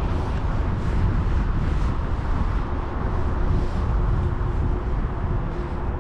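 Steady low rumble of road traffic crossing the bridge overhead, swelling slightly as vehicles pass.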